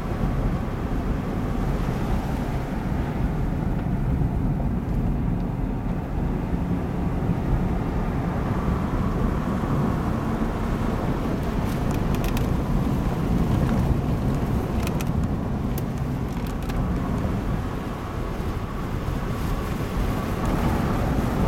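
A car's engine and road noise, heard from inside the cabin as it drives along: a steady low rumble. A few light clicks come around the middle.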